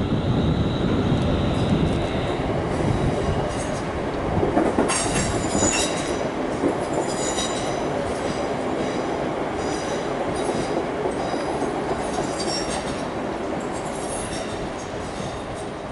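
Two coupled Class 350 Desiro electric multiple units pulling away, with a steady rumble of wheels on rail. From about five seconds in, high-pitched wheel squeal comes and goes as the train takes the curving track.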